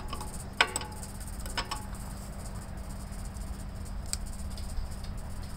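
A few sharp metallic clicks of a wrench working the sediment-bowl fuel fitting loose under a Gravely tractor's fuel tank: two clicks about a second apart early on, and a faint one near the end, over a steady low hum.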